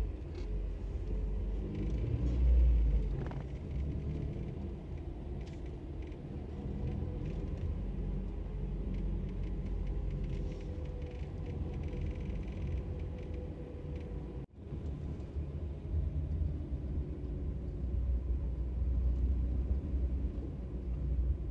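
Car driving slowly, heard from inside the cabin: a steady low rumble of engine and tyres on the road. It swells briefly about two and a half seconds in and cuts out for a moment about two-thirds of the way through.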